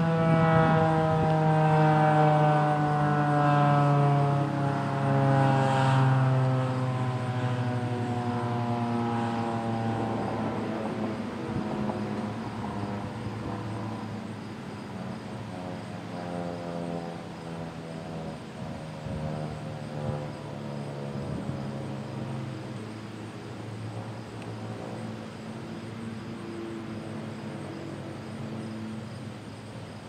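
Federal Signal 2001-130 rotating tornado siren winding down after its alert signal, its tone sliding slowly lower in pitch and fading.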